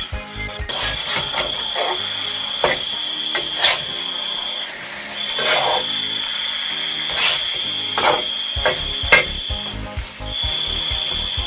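Kitchen work sounds: irregular knocks and scrapes of utensils or a knife on wood. A steady high-pitched whine runs behind them and breaks off a few times.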